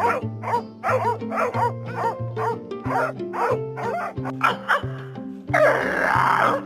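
Music with a steady beat under a dog's short, rapid barks or yips, about three a second. About five and a half seconds in, a louder rough noise takes over.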